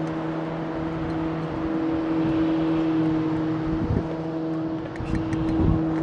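An engine running at a steady, unchanging pitch, with a few knocks near the end.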